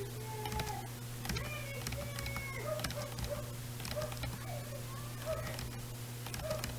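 Computer keyboard keys clicking now and then over a steady electrical hum, with many short chirping tones scattered through.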